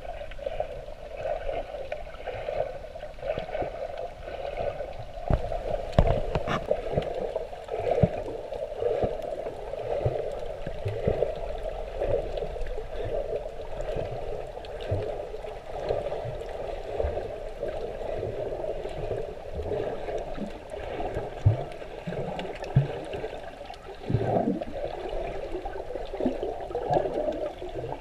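Underwater water noise heard through a submerged camera: a steady muffled rushing with scattered short knocks and thumps.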